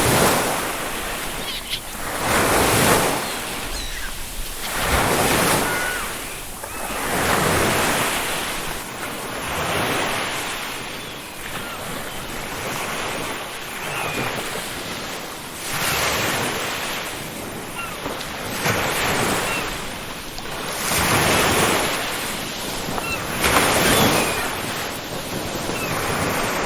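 Ocean waves breaking on a beach, the surf rushing in and washing back about every two and a half seconds, with a few faint, short seagull calls.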